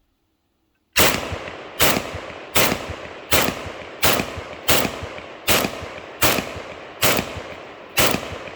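AKSU Krinkov pistol, an AK-pattern pistol, fired semi-automatically: about ten loud shots starting about a second in, one roughly every three-quarters of a second, each followed by a ringing echo.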